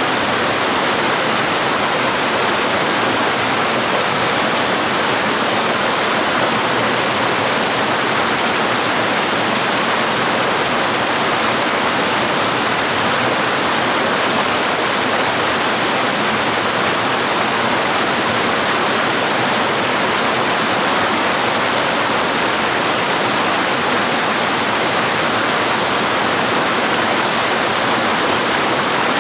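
Waterfall and stream water flowing: a steady, even rush that does not change.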